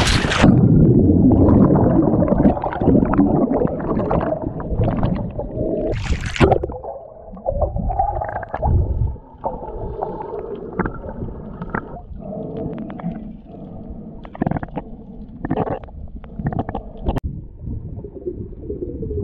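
A splash as a snorkeler in fins drops into the sea, then muffled underwater sound through the submerged camera: low rumbling with gurgling bubbles and scattered clicks.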